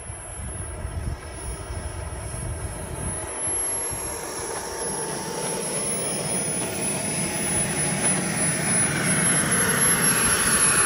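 Small gas-turbine engine of a JTM xXx DragonBall RC model jet running at idle while the model taxis after landing: a steady high whine over a rushing exhaust hiss that grows louder as the jet comes closer.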